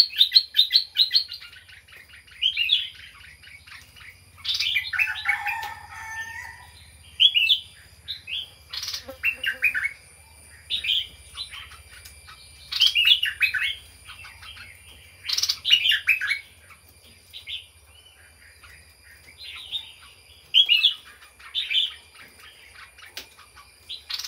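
A caged songbird (nok dok taeng) singing short, quick chirpy phrases every couple of seconds, with brief pauses between them.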